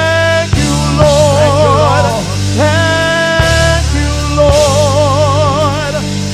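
Live gospel worship song with band accompaniment: long sung notes, some wavering with vibrato and some sliding up into a held pitch, over a steady low bass line.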